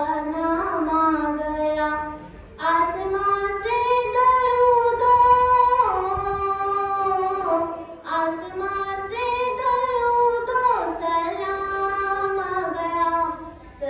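A schoolgirl singing an Urdu naat, a devotional poem in praise of the Prophet, solo into a microphone. She sings long held, wavering notes that slide between pitches, with short breaths between phrases about two and eight seconds in.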